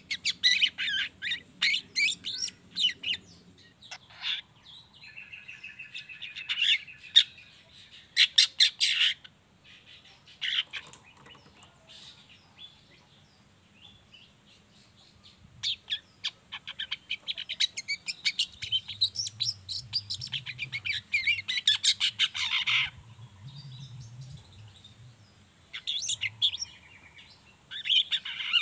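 Juvenile long-tailed shrike chattering in bouts of rapid, scratchy chirps, with a quiet gap of a few seconds in the middle.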